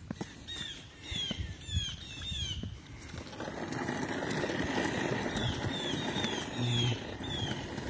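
A songbird singing a repeated series of short, down-slurred whistles, about two a second, pausing in the middle and starting up again. A few light taps sound early on, and from about three seconds in a steady rushing noise builds up beneath the song.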